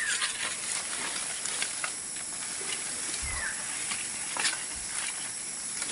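Leaves and branches of a calamansi tree rustling as a hand reaches in among them, with a few scattered clicks and snaps and a dull thump about three seconds in.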